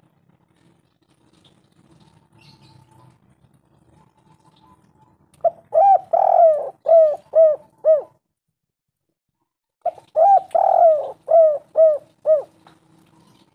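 Spotted dove cooing: two phrases of about six short coos each, every note bending down in pitch. The first phrase comes about five seconds in and the second about ten seconds in.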